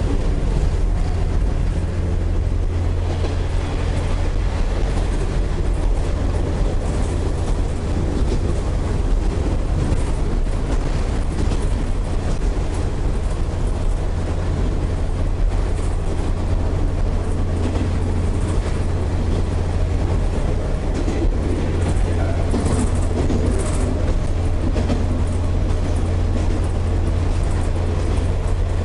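Cabin noise of a KiHa 40/47-series diesel railcar under way: a steady low rumble of the underfloor diesel engine and running gear, with wheel-on-rail noise over it.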